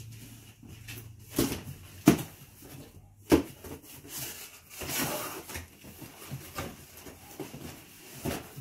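A knife cutting the packing tape on a cardboard box, with a few sharp knocks and clicks in the first three and a half seconds. About five seconds in, the box flaps are pulled open with a rasping cardboard rustle.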